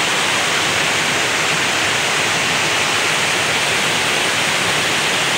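Fast-flowing river rushing over rocks: a steady, loud wash of water noise that does not change.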